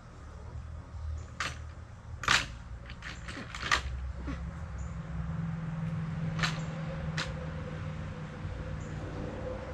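Scattered sharp knocks and clicks, with a few coming in quick succession. A low steady hum comes in about four seconds in.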